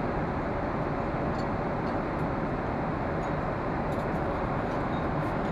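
Steady cabin noise of a Boeing 777-300ER airliner in flight: the even rush of airflow and engines heard from inside the cabin, with a few faint clicks.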